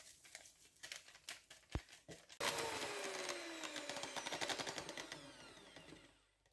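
A few light clicks and knocks, then about two and a half seconds in an electric mixer's whisks whip cream. The mixer sound comes in suddenly and fades out over about three seconds, its pitch falling.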